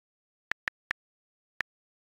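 iPad on-screen keyboard key-click sounds, four letter-key taps: three in quick succession about half a second in, then one more a little later. The clicks are captured straight from the device's system audio, with silence between them.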